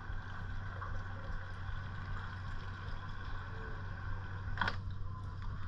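Steady muffled wind and road noise on an action camera's microphone while riding a road bike, with a constant low hum underneath. One short sharp sound about three-quarters of the way in.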